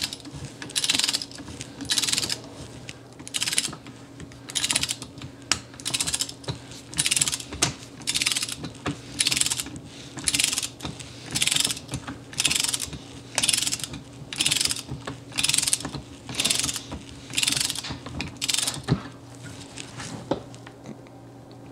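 Ratcheting torque wrench clicking in short bursts, about three every two seconds, as it is swung back and forth to run down the nozzle nut of a 7.3 Powerstroke HEUI injector held in a vise.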